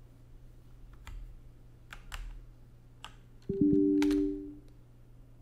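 A few scattered keystrokes on a computer keyboard. About three and a half seconds in, a short two-tone electronic chime sounds for about a second.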